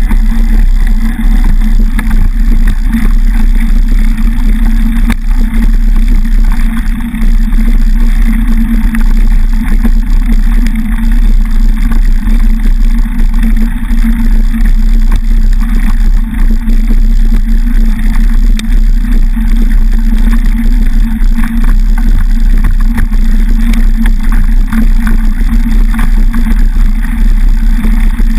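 Loud, steady rumble of wind and ride vibration on a bike-mounted action camera as a mountain bike rolls along a gravel track on knobbly tyres.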